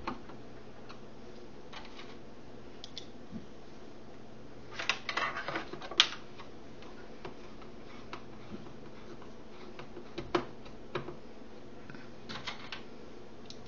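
Small clicks and taps of parts and hardware being handled inside an opened Emax keyboard chassis during reassembly, over a steady low hum. A quick cluster of clicks comes about five seconds in, followed by a sharp click, with another strong click a little past ten seconds and a few lighter ones near the end.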